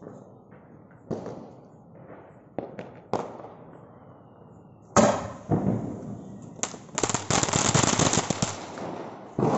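A Sony brand "Xmas tree" ground firework going off. A few scattered pops, then a loud bang about five seconds in, followed by a burst of dense, rapid crackling as it sprays sparks and crackling stars, and another bang near the end.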